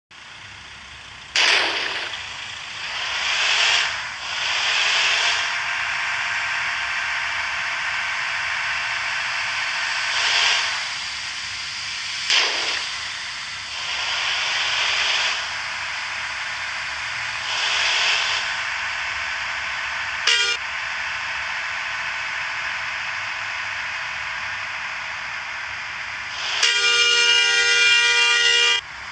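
Steady hiss with several loud swelling whooshes, then near the end a bus telolet air horn sounding a chord of several tones for about two seconds. A brief horn blip comes about two-thirds of the way in.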